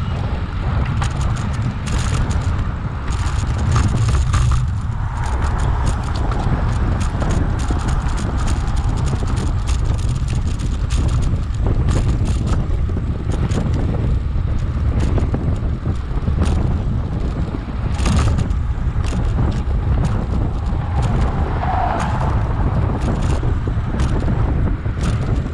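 Wind buffeting the microphone of a rider at speed, a heavy steady rumble, with many irregular clicks and rattles from the bicycle throughout.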